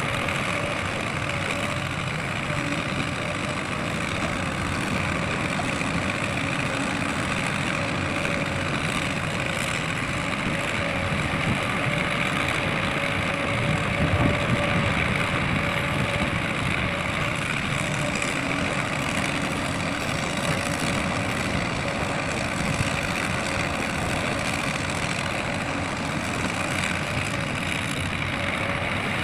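Heavy diesel machinery engine running steadily, with a faint steady whine that fades out about six seconds in.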